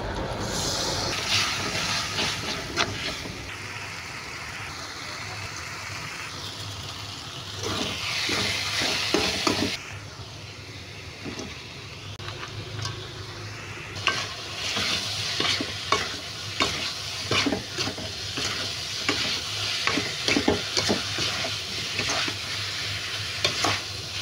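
Chopped green chillies and shallots sizzling in hot oil in a metal wok, with a spatula scraping and clattering against the wok as they are stir-fried. Partway through, slices of jengkol go in and the stirring goes on with frequent sharp scrapes over the frying hiss.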